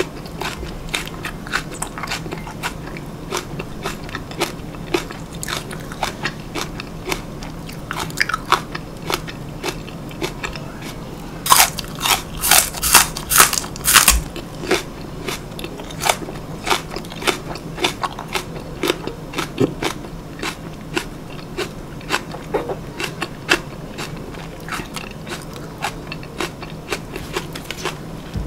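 Crunching and chewing of a raw green onion stalk (Korean daepa): a steady run of crisp crunches, with a burst of loud, sharp bites about halfway through.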